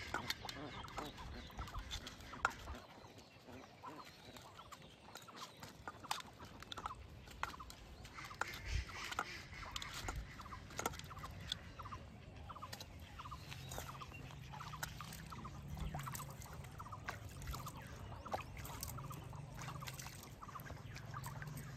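Hands washing in a metal bowl at the water's edge: small splashes and scattered clinks and taps. Domestic fowl cluck in the background, and a low steady hum comes in about halfway through.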